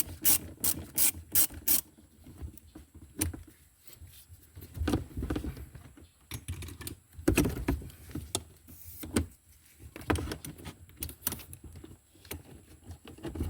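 Socket ratchet clicking in a quick, even run while a console mounting bolt is loosened. This is followed by scattered knocks and rattles of tool and trim handling.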